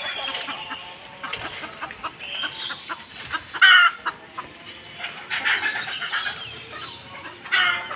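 Chickens clucking on and off, with two louder, short calls about halfway through and near the end.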